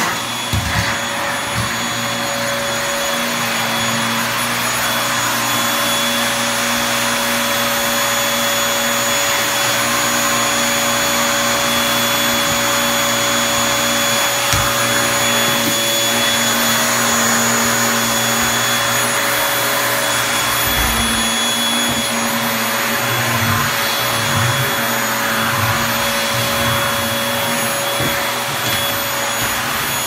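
Stick vacuum cleaner running steadily with a constant whine while its powered floor head is pushed over a hard floor. There is one sharp click about halfway and a few low bumps in the second half.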